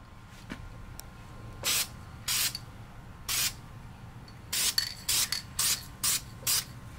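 Aerosol can of high-temp primer spraying in short bursts, about eight quick hisses that come faster in the second half, laying down the first primer coat on a brake caliper.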